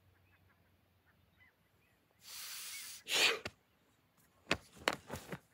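A person's breathing during slow movement: a long breathy exhale about two seconds in, then a shorter, louder breath out just after, followed by a few quick rustles or clicks near the end. Faint bird chirps in the first two seconds.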